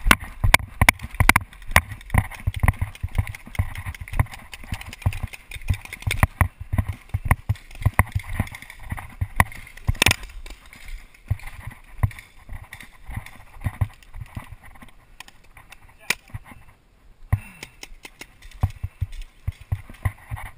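Running footsteps on grass and paintball gear jostling against the mounted camera: a string of irregular dull thumps and knocks that thins out in the second half, with one sharp crack about ten seconds in.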